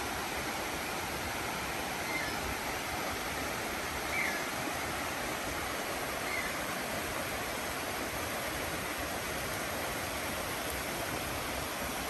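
Shallow forest stream running and splashing over stones, a steady rush of water. A few faint short high calls sound about two seconds apart in the first half, from a creature the uploader could not tell as an Ishikawa's frog or a small bird.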